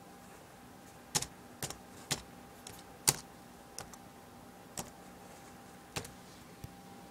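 Laptop keyboard keys pressed one at a time: about ten sharp clicks at uneven intervals, the loudest about three seconds in, over a faint steady hum.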